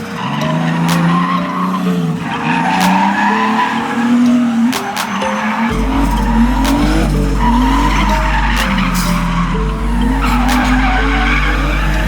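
Car drifting: the engine revs up and down while the tyres squeal and skid.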